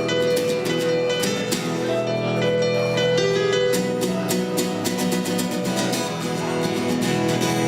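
Instrumental break in a live band's song: strummed acoustic guitar chords under a held melody line, with no singing.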